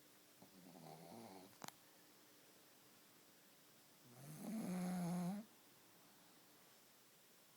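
Pug snoring in its sleep: a softer snore about half a second in, a brief click, then a louder, pitched snore about four seconds in that cuts off suddenly.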